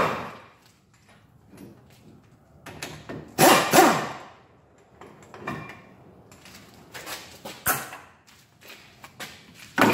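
Hand tools and steel brake parts clanking and scraping at a truck's front brake while the caliper and its bracket are unbolted and pulled off. Two loud scraping bursts with a falling squeal come about three and a half seconds in, followed by scattered clicks and a sharp metallic clank near the end.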